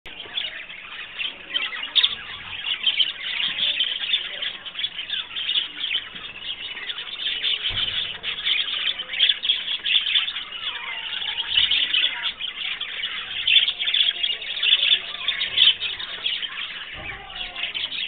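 A flock of budgerigars chattering and chirping all at once, a continuous dense twittering of many birds.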